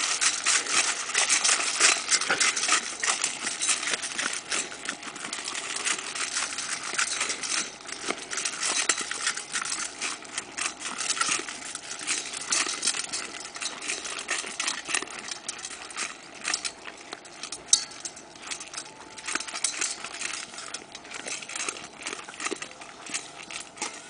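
Dogs eating dry kibble from stainless steel bowls: rapid crunching and chewing with kibble rattling against the metal, busiest in the first few seconds and thinning out later.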